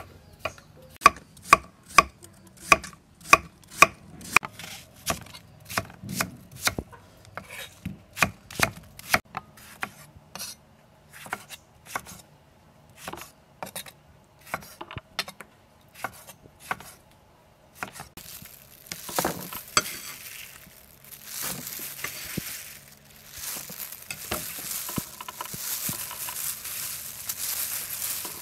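A kitchen knife chopping vegetables on a wooden cutting board: a steady run of sharp knocks, about two a second. Around two-thirds of the way in the chopping stops and gives way to a rustling, crinkling noise as cut vegetables are handled in a plastic colander.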